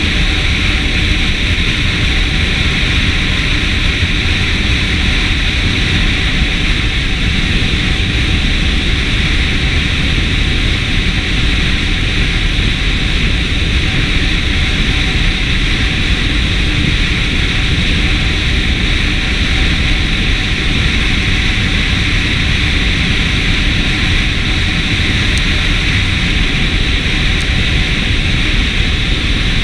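Steady wind rushing over a motorcycle-mounted camera's microphone at road speed, with the motorcycle's engine running underneath in a constant low rumble.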